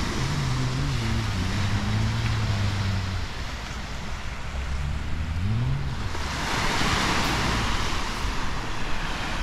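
Surf washing on a sandy beach with wind on the microphone, swelling about six seconds in. Under it, a motorboat engine drones in the bay, rising in pitch briefly around five seconds in.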